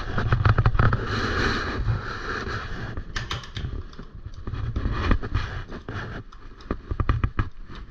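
Irregular clicks, knocks and rattles from a mountain bike's drivetrain and derailleur being handled and adjusted, with a rougher rattling stretch about a second in.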